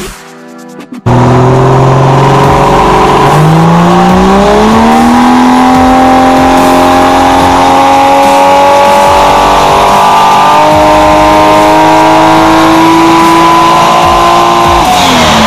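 Toyota Hilux ute engine on a chassis dyno at full throttle, very loud: the revs hold, climb sharply a few seconds in, then rise steadily under load with another step up, and fall away near the end as the throttle is released.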